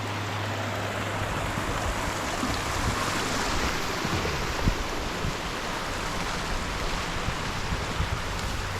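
Mountain creek rushing over rocks, a steady even rush of water.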